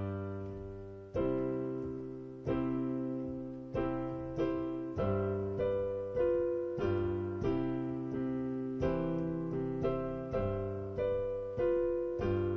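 Piano playing a march: chords struck one after another in a steady rhythm, each ringing and fading before the next.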